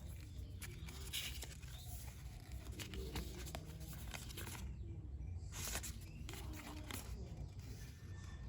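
Handling noise from unboxing: rustling and scattered clicks, with two brief louder rustles about a second in and just past halfway, over a steady low hum.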